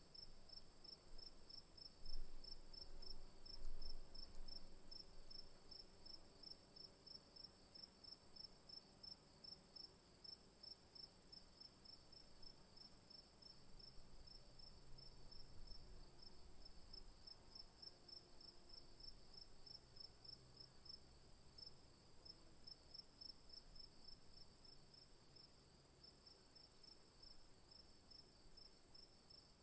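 Crickets chirping faintly: one steady high trill, with another cricket chirping in an even pulse a few times a second. Two brief low bumps come a few seconds in.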